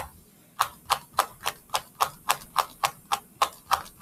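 Megaminx face being turned over and over, each turn giving a sharp click, about three clicks a second starting about half a second in. It is the springy noise of a layer that still turns scratchily even with GAN Magic Lube on its pieces.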